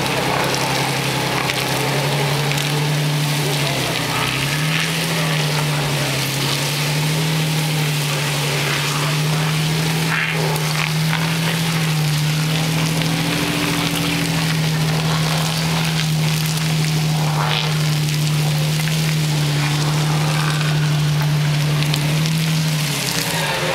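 An off-road vehicle's engine running at a steady speed, its pitch dipping briefly a few times, under a constant hiss.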